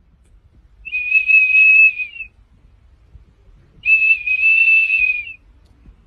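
Golden retriever blowing a small blue plastic whistle held in its mouth: two long, steady, high-pitched toots about a second and a half each, with a pause between.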